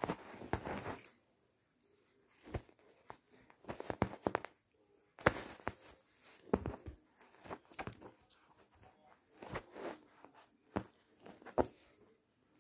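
A cat playing on bedding: irregular bursts of sheet rustling and scratching, with sharp clicks of teeth and claws on a thin wooden stick it is biting and kicking.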